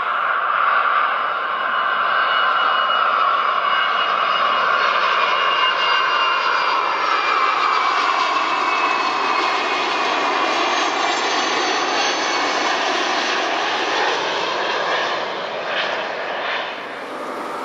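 Douglas DC-8-62's four Pratt & Whitney JT3D turbofans on landing approach, passing low overhead: a loud engine noise with a high whine that slides lower in pitch as the jet goes by, easing slightly near the end.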